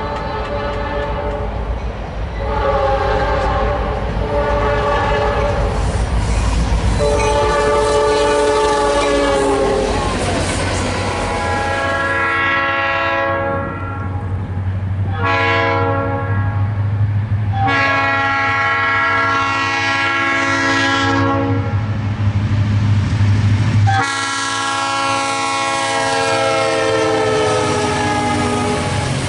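Leslie RS-3L three-chime air horn on a GP40-2 diesel locomotive sounding a series of long and short blasts as the train approaches and passes. The pitch slides down during the last long blast. The locomotive's low engine rumble and wheel clatter run underneath.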